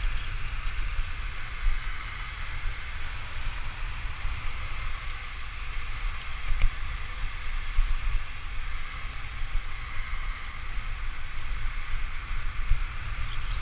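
Wind buffeting a moving action camera's microphone as a low, uneven rumble, over a steady hiss of road noise.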